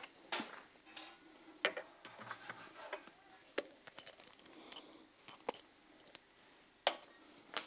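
Scattered light clicks and taps of a wooden spoon against a frying pan while diced onions and spices are stirred, several in quick succession near the middle.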